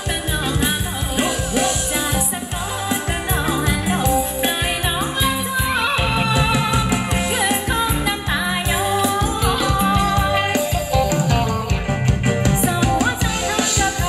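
Upbeat Thai ramwong dance music from a live band, with a steady drum beat under a bending melodic lead.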